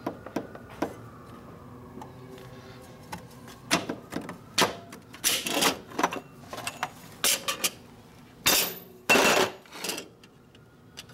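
Clutch plates and the steel clutch basket of a Harley-Davidson Shovelhead knocking and clinking against each other as the tight-fitting plates are worked into the basket. The knocks are sharp and irregular, with the loudest ones about eight and nine seconds in.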